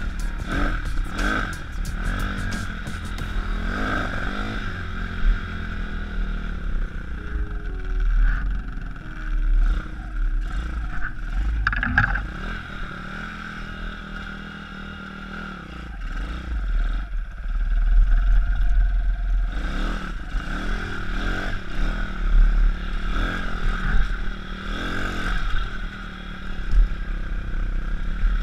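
YX 160cc single-cylinder four-stroke engine in a pit bike running and revving up and down on a dirt trail, a newly fitted engine being run in at modest revs. It drops back and quietens through the middle, then picks up and revs harder from past halfway, with wind rumble on the helmet microphone.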